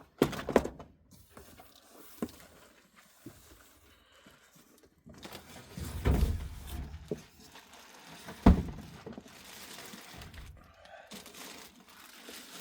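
Packaging being rummaged through and handled: crinkling and rustling of plastic and cardboard, with a few knocks and one sharp thump about eight and a half seconds in.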